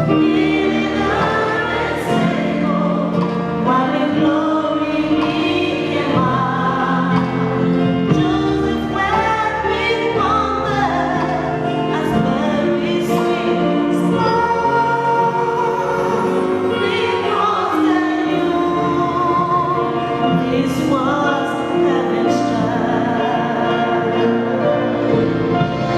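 Choir singing with instrumental accompaniment, a steady full sound with no breaks.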